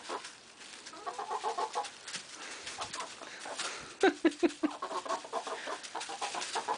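Pet chickens clucking in quick pulsed runs, with a louder run of calls about four seconds in.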